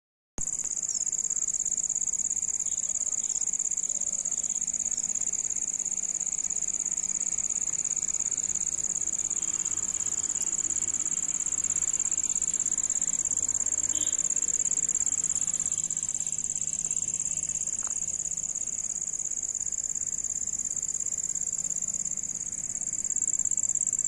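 A steady, high-pitched trilling of crickets, one unbroken shrill note with a faint low hum beneath it.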